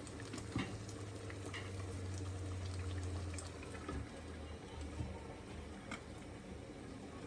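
Chicken and masala in water simmering in a covered pot over a medium flame: low bubbling under the lid with a steady low hum, strongest in the first half, and a few faint clicks.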